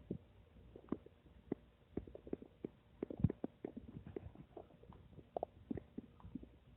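Human stomach gurgling and rumbling: a fast, irregular string of short bubbly pops and gurgles, busiest and loudest a little past three seconds in.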